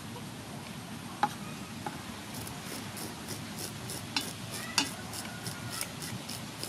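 Scissor blade scraping the scales off a whole fish: a run of short rasping strokes with a few sharp clicks.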